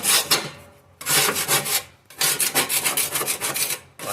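Rapid back-and-forth scraping on the Spitfire's dusty steel floor pan, about six strokes a second, in three runs with short pauses about a second and two seconds in.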